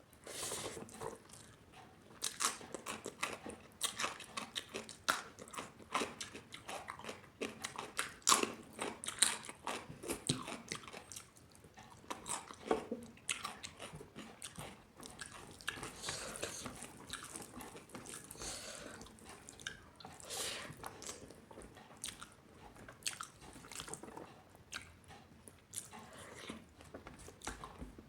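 Close-up mouth sounds of someone chewing and biting food, with frequent sharp, irregular crunches.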